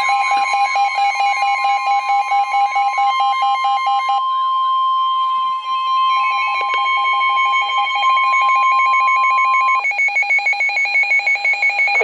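Several NOAA weather alert radios going off together for a flood warning: the broadcast's steady warning alert tone, which stops near the end, sounds under rapid pulsing alarm beeps of several pitches from the radios themselves.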